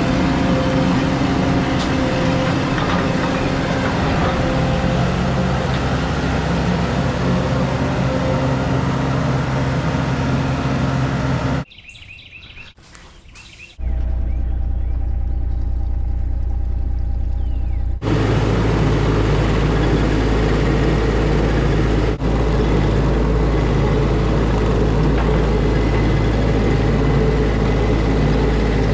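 A vehicle engine running steadily in several spliced clips, with a short, much quieter gap about twelve seconds in before a deeper steady engine hum resumes.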